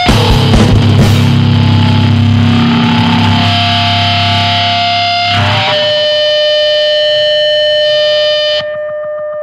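Distorted electric guitar in a powerviolence recording: a chord left to ring out loud after a run of stop-start hits, then about five and a half seconds in the low end drops away and steady high guitar feedback tones hum on, dropping in level near the end.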